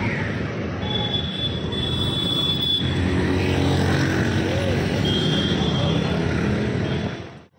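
Steady engine and road noise of a vehicle moving along a city street, with two spells of a high steady tone along the way. It cuts off suddenly near the end.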